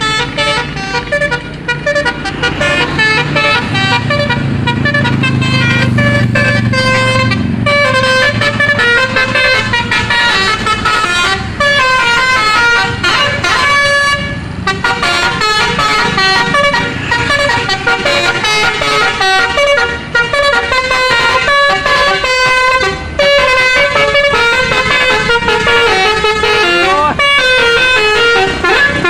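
Basuri telolet bus horn playing a quick, continuous melody of bright multi-tone horn notes. A vehicle engine rumbles low beneath it for the first several seconds.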